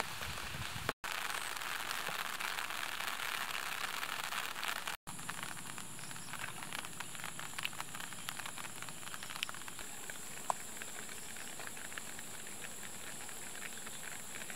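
Steady hiss of light rain with scattered pattering drops. After a brief cut about five seconds in, a high, steady insect drone comes in over the rain.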